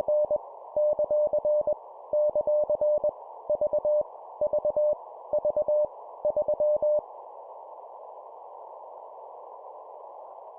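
Morse code (CW) practice tone at 20 words per minute: a single-pitched beep keyed in groups of dots and dashes, each random character sent three times, over a steady radio-like hiss. The keying stops about seven seconds in, leaving only the hiss.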